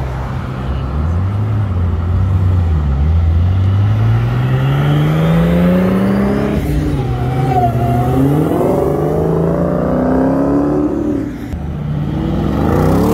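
Performance car engines accelerating away one after another: one engine's pitch climbs steadily for several seconds, drops at a gearchange about six and a half seconds in and climbs again. A second car revs up near the end.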